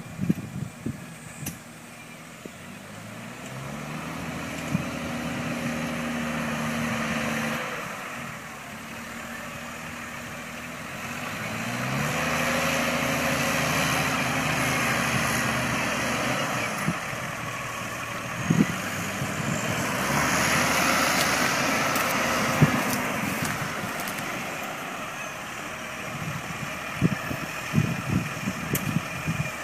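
Deutz-Fahr TTV 610 tractor engine working under ploughing load. Its pitch rises and falls a few times: up around three to four seconds in, down near eight, and up again near twelve and twenty seconds. A hiss runs underneath, with scattered knocks and clatters, most of them near the start and near the end.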